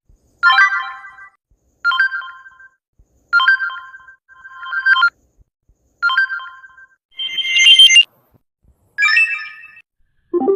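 A series of short Samsung phone notification tones played one after another with brief silent gaps. Each is a bright, chime-like tone lasting under a second and fading quickly. The last one, at the very end, is lower in pitch.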